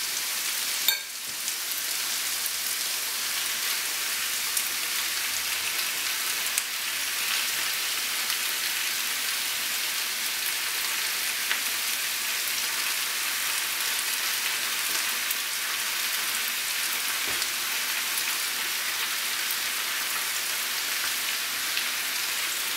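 Fish fillets frying in a pan of tomatoes and peppers: a steady sizzle.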